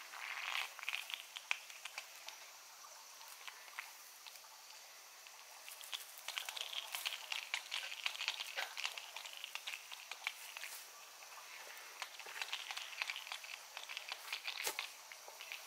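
Leaves and stems of a chrysanthemum bush rustling as flowers are picked by hand, in three bouts with many small crackling clicks.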